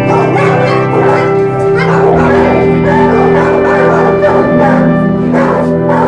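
Background guitar music with steady held notes, over shelter dogs barking in their kennels.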